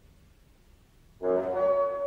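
Unaccompanied bassoon solo: a rest of about a second, then a sustained note enters sharply and holds.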